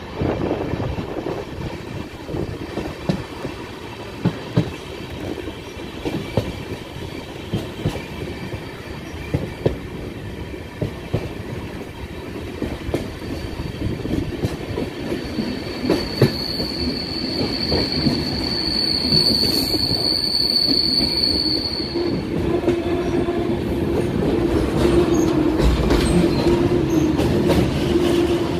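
Passenger train coaches running over the rails, heard from the coach door: a steady rumble with frequent sharp clicks of the wheels over the track. From about halfway a thin, high-pitched wheel squeal rises for several seconds, and then a lower steady squeal takes over: steel wheel flanges grinding against the rail as the train rounds curves.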